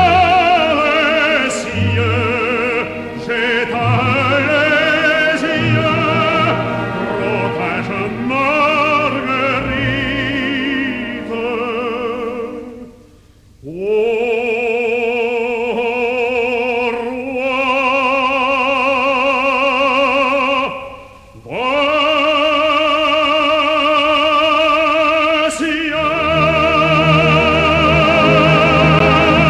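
An operatic baritone singing long held notes with wide vibrato over an orchestra, in a 1953 recording. He breaks off briefly twice for breath, and the orchestra grows fuller near the end.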